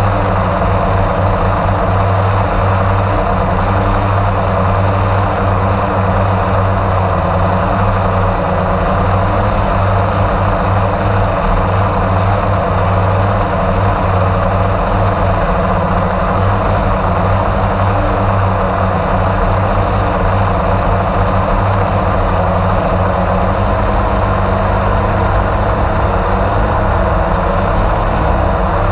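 Multirotor drone's motors and propellers humming steadily, heard from the camera on board the drone: a constant low hum with an even rushing hiss over it.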